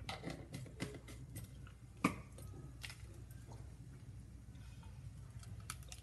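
Mustard seeds spluttering in hot coconut oil in a small tempering ladle: scattered sharp pops and crackles, the loudest about two seconds in, over a steady low hum.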